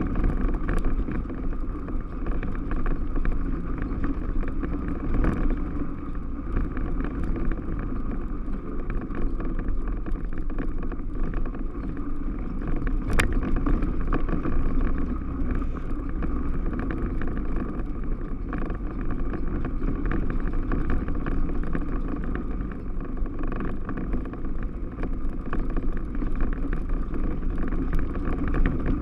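Yamaha Rhino 660 side-by-side's single-cylinder engine running steadily on the move, with wind on the microphone and a few sharp knocks.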